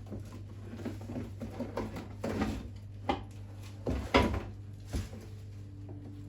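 Metal engine parts and tools being handled on the bench during the strip-down: a run of irregular clunks, taps and scrapes, the loudest a sharp knock about four seconds in, over a steady low hum.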